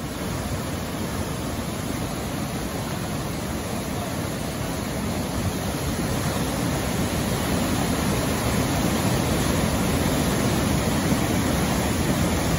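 Muddy floodwater pouring over a low dam in a flash-flooded river and churning in the rapids below: a steady, deep rush of water that grows a little louder over the first several seconds.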